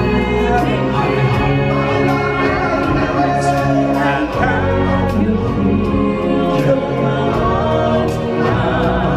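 Amplified live stage-show music: a lead singer with choir-like backing voices over a band track, loud and continuous.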